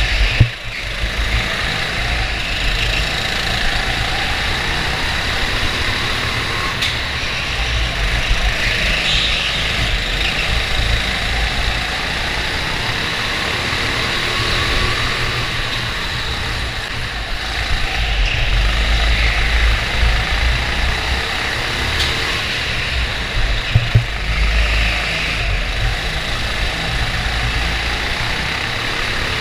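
Go-kart engine running continuously as the kart laps, heard from on board the kart, with a deep rumble. A sharp knock comes just after the start and two more about four-fifths of the way through.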